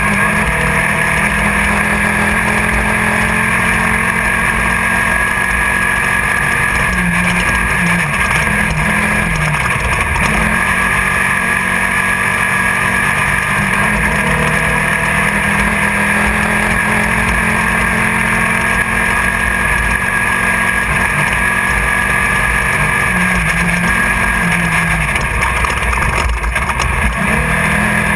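Class 1600 off-road race buggy's air-cooled VW flat-four running hard at steady high revs, heard from inside the car over constant road and wind noise. The engine pitch dips and climbs back twice, about 8 seconds in and again near the 23-second mark.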